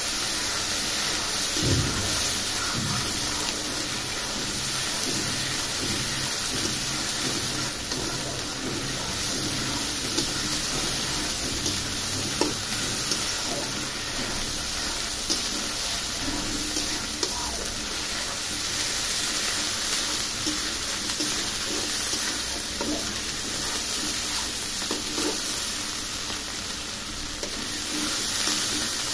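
Potato chunks sizzling steadily as they fry in oil and spice paste in a karahi, with a spatula stirring and scraping through them, marked by occasional small ticks. This is the sauté (koshano) stage, where the masala is cooked down with the potatoes.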